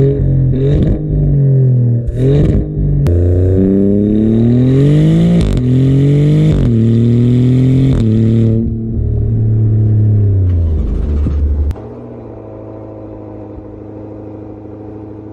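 2024 Maserati GranTurismo Modena's twin-turbo Nettuno V6 exhaust, heard close to the quad tailpipes, revving and accelerating in several pulls whose pitch climbs and falls. About twelve seconds in, the engine stops and a quieter steady drone takes over.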